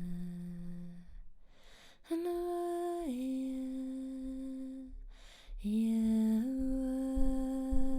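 A woman humming long, held wordless tones in a low, calm voice. Each tone steps down or up in pitch partway through, with short pauses for breath about a second in and about five seconds in.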